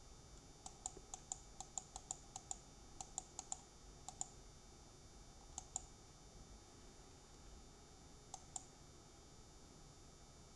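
Computer keyboard keys clicking faintly: a quick run of about a dozen presses, then a few scattered double presses. These are keypresses stepping through the BIOS clock settings.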